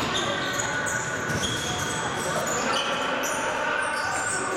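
Futsal match play on an indoor court: many short, high squeaks of players' shoes on the floor, with knocks of the ball being kicked and bouncing.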